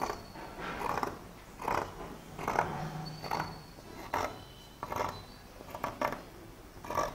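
Scissors cutting through folded cotton cloth in steady, regular snips, about one cut every 0.8 seconds.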